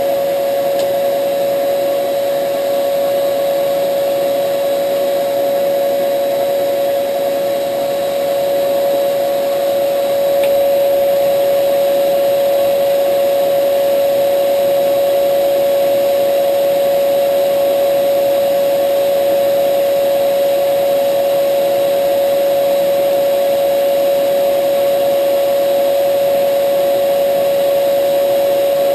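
Shop vacuum cleaner running steadily with a strong, constant whine.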